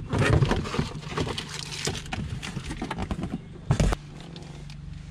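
Cardboard box and plastic packaging handled by hand, rustling and clicking, with one loud thump a little before the end as something is set down.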